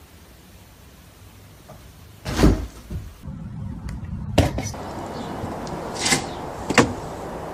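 About four sudden thumps and knocks over a steady background hiss, the loudest a deep thump a couple of seconds in: cats jumping and landing.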